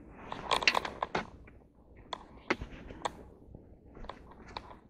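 Close handling noise: rustling clothing with a string of sharp clicks and taps, busiest in the first second, then scattered taps.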